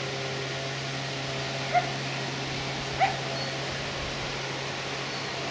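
Two short rising animal calls, about a second apart, over a steady low hum and even background noise.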